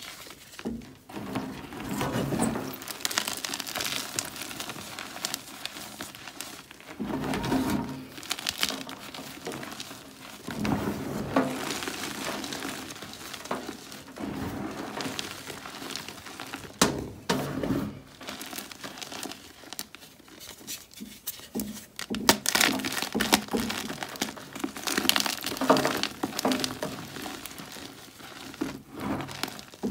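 Blocks of Ader gym chalk, hardened from sitting unwrapped for seven days, crushed and crumbled by hand: crisp crunching and crackling in irregular bursts with short pauses between, the loudest and densest crunches in the last third.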